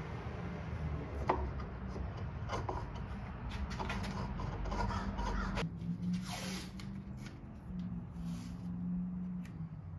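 Hand tools working wood: a run of irregular scraping strokes and light knocks, over a steady low hum.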